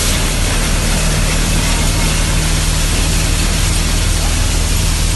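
NVT basket-model threshing machine running steadily: a loud, even din with a low steady hum underneath.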